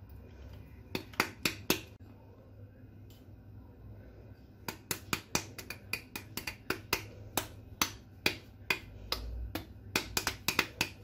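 Sharp, irregular taps of a hand striking an upturned glass tumbler to knock flour out into a glass mixing bowl: a few taps about a second in, then a long run of quick taps, roughly three or four a second, from about halfway through.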